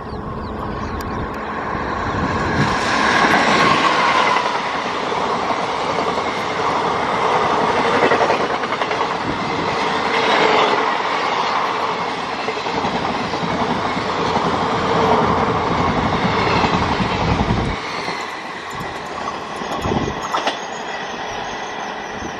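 Express passenger train hauled by an electric locomotive passing at speed close by: a loud, steady rush of steel wheels on rails with the clickety-clack of the coaches' bogies over rail joints, swelling every couple of seconds. The deep rumble drops away about eighteen seconds in as the last coach goes past and the train recedes.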